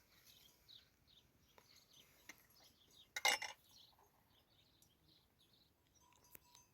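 Faint bird chirps scattered throughout, with a few light clicks and one short, louder clinking rasp about three seconds in.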